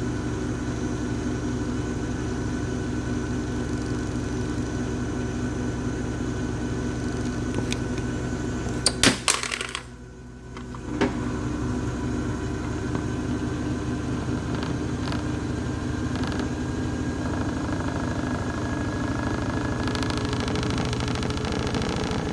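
Washing machine running with a steady motor hum. About nine seconds in there are a few sharp clicks, the hum drops away for about a second and a half, then another click and the hum comes back.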